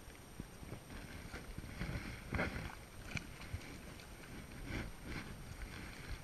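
A hooked fish splashing at the surface close beside a small boat, in irregular bursts of splashing, the loudest about two and a half seconds in.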